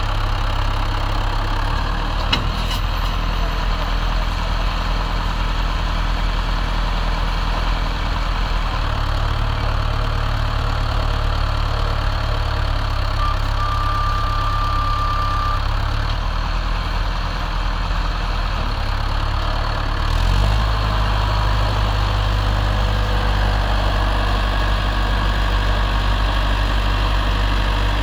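Swaraj XM tractor's diesel engine running hard as it strains to pull a fully loaded sand trolley through soft sand. About two-thirds of the way through, the engine note rises and gets a little louder as it revs up under the load.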